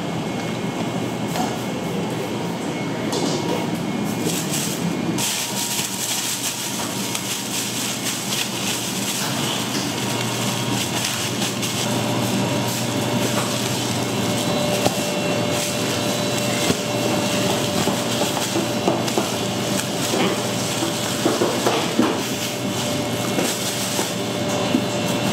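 Bakery kitchen at work: a steady mechanical hum that grows hissier about five seconds in, with scattered knocks and clatter, more often towards the end.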